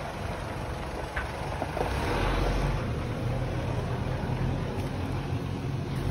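Mitsubishi L200 pickup's engine running steadily, a low rumble, with a few faint clicks.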